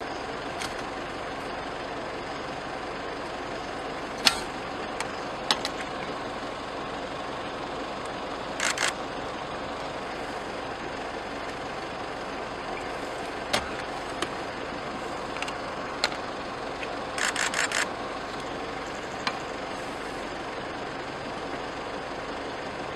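Steady hum of an idling vehicle engine, with scattered sharp clicks and knocks and two short runs of quick ticks.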